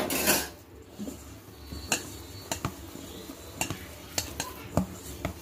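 Hand kneading crumbly semolina dough in a stainless steel bowl: irregular sharp knocks and scrapes against the metal, the loudest right at the start.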